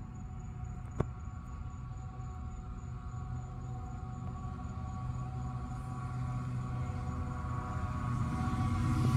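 Mosquito fogging truck approaching: a steady, droning hum with several held tones that grows louder as it nears. A single sharp click about a second in.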